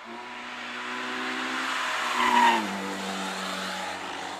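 Citroën AX hatchback's engine running at steady revs as the car drives by on a wet track, with tyres hissing on the wet road. It grows louder, passes about two and a half seconds in, where its pitch drops, and then fades away.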